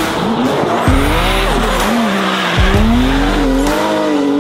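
A drift car's turbocharged 2JZ straight-six revving up and down as the car drifts, with tyre squeal.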